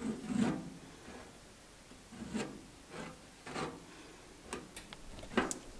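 A small spreader scraping and smoothing Bondo body filler across the metal lid of a tool box, in about six short, irregular strokes, the sharpest about five and a half seconds in.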